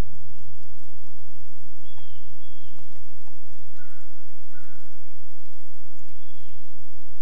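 A few short, high bird chirps over a steady low hum.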